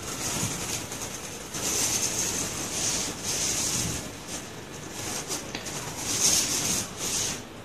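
Rubber-bladed wiper (squeegee) dragged in repeated strokes across solar panel glass, spreading a thin coat of wet epoxy: a run of about six or seven hissy swishes with short gaps between them, the loudest near the end.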